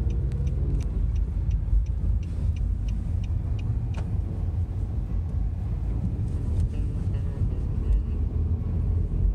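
Car driving through city streets, heard from inside the cabin: a steady low rumble of engine and tyre noise.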